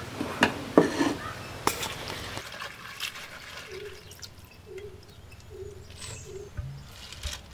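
Handfuls of chopped cabbage leaves being lifted out of a clay pot and dropped into a metal mesh strainer: leaves rustling, with a few sharp knocks in the first two seconds.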